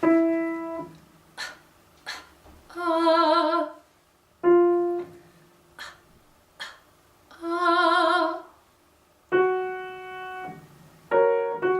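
Vocal exercise against a piano. The piano plays a single note, then a singer gives two short fake coughs and sings that pitch as a held note with wide vibrato. The pattern repeats, and near the end the piano plays a higher note followed by a quick run of notes.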